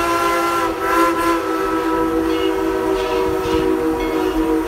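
Steam locomotive No. 190's Lunkenheimer chime whistle sounding one long, steady blast: several notes held together as a chord.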